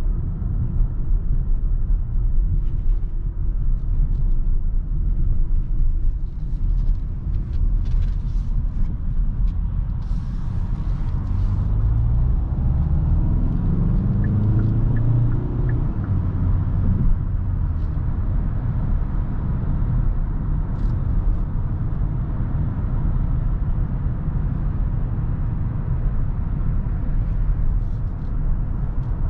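Kia Sorento's 2.2 CRDi diesel engine and tyre rumble while driving. About halfway through, the engine note climbs for a few seconds as the car accelerates, then falls back.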